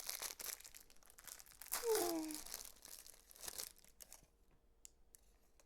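Plastic wrapper of a Rice Krispies Treat crinkling and tearing as it is opened, for about the first four seconds. A brief voiced sound with falling pitch comes about two seconds in.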